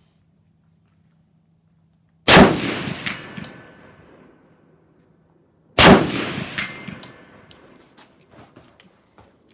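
Two rifle shots fired from prone, about three and a half seconds apart, each echoing away over a couple of seconds. A faint ringing tone follows each shot, like a hit on a steel target.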